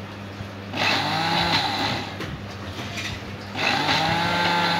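Countertop electric blender coarse-chopping fried chilies, garlic and shallots: the motor speeds up and winds down in two surges, about a second in and again past three and a half seconds.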